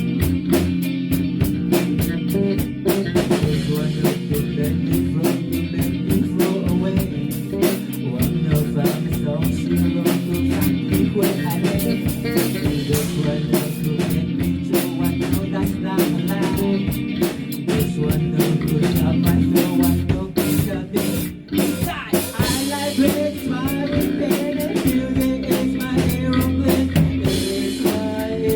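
A band playing: drum kit keeping a steady beat under guitar, with a short drop in level about two-thirds of the way through.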